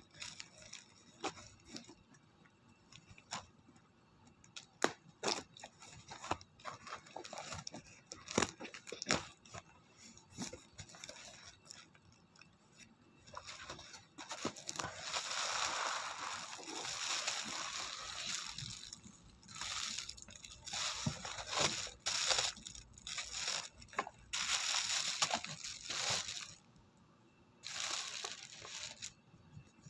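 A cardboard parcel being opened by hand: scattered knocks and taps as the box is handled, then from about halfway in several long spells of rustling and tearing packing material.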